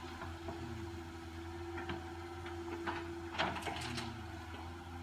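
Cat 315C excavator's diesel engine running steadily with a constant hum. A few clanks and rattles come about two seconds in, and a louder cluster comes about three and a half seconds in, as the bucket works over the dump truck bed.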